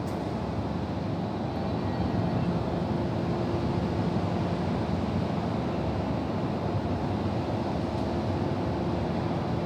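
Steady rushing noise of a storm's wind and rain, strongest in the low range, with a faint steady hum running under it.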